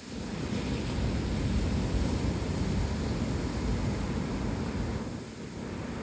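Ocean surf breaking and washing up a sandy beach: a steady rushing roar that swells just after the start and eases slightly near the end.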